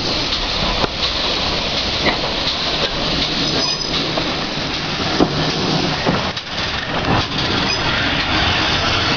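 Ex-GWR 0-6-0 pannier tank locomotive 9682 running slowly past on the next track, close alongside the carriage: a steady loud rumble and hiss with scattered clicks and clanks.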